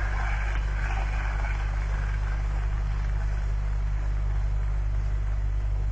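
Steady low hum with a hiss over it, the hiss dying down over the first couple of seconds.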